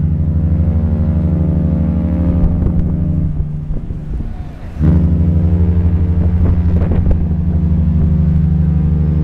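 A large cruise ship's deep horn sounding long blasts. One blast dies away about three seconds in, and after a short gap another starts sharply at about five seconds and holds steady.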